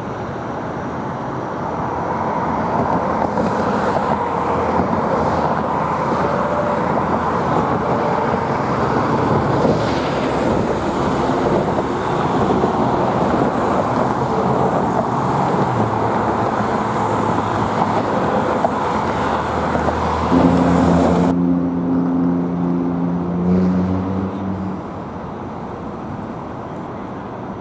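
Road traffic passing close by: a steady rush of tyres and engines that builds over the first few seconds and drops off abruptly about twenty seconds in. A heavy vehicle's low engine drone is heard near the end.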